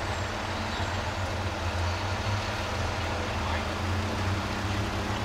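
Car passing slowly at close range: a steady low rumble of engine and road noise.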